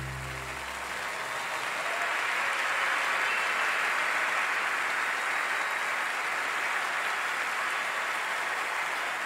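Large audience applauding, swelling over the first couple of seconds and then holding steady.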